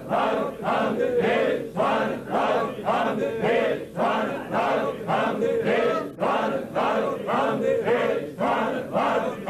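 Group of men chanting zikr in unison: a short phrase repeated over and over in a steady, quick rhythm.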